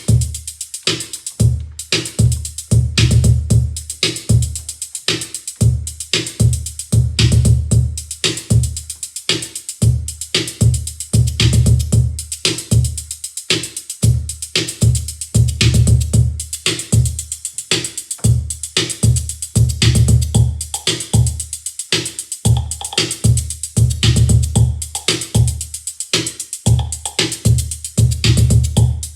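Roland TR-08 drum machine playing a beat: long, deep, booming 808-style bass drum hits repeat under a steady run of sharp high ticks. In the last third a higher-pitched drum tone joins the pattern.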